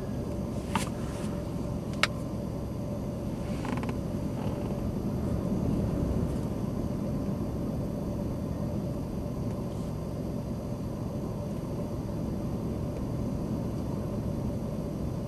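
Steady low background rumble with a faint hum through it, broken by two sharp clicks in the first two seconds.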